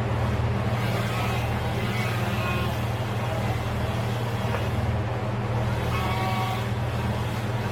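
An engine running steadily, a low even drone that holds the same pitch throughout.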